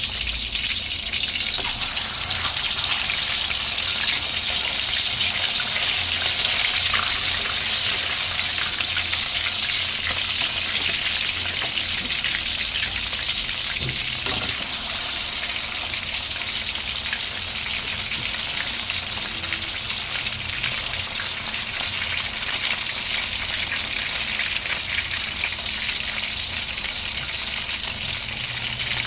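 Chicken deep-frying in hot oil: a steady, dense sizzle with fine crackling, a little fuller in the first several seconds.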